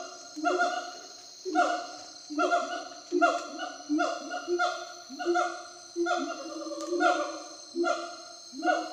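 Wild gibbons calling: a long run of loud hooting notes, each sweeping up at the start and then held, repeated roughly once a second. A steady high buzz, like cicadas, runs behind.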